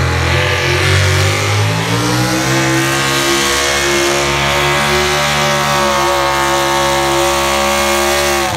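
Pulling truck's engine at full throttle under load as it drags a weight-transfer sled, the pitch climbing over the first two seconds, then held high and steady. The engine note breaks off abruptly at the end.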